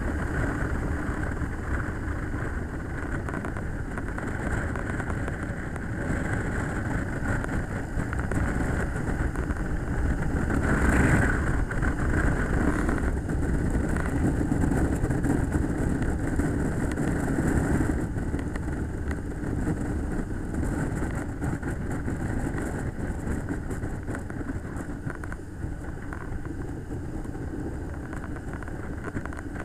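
Motorcycle riding at road speed, engine running under a steady rush of wind over the bike-mounted microphone, swelling louder about eleven seconds in.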